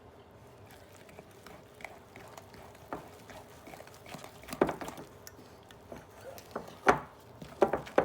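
A utensil stirring thick brownie batter in a mixing bowl, with irregular clacks and scrapes against the bowl that grow louder and more frequent about halfway through.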